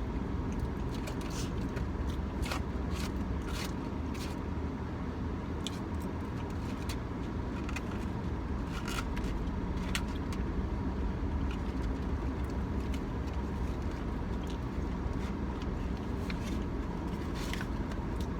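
Steady low hum of a car interior, an idling engine or its fan, with a faint steady whine, broken by scattered small clicks and crackles of food and packaging being handled and eaten.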